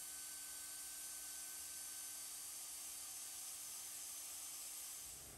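Small grinder with a 2-inch Roloc disc, spinning with a faint, steady high whine and hiss. It stops near the end.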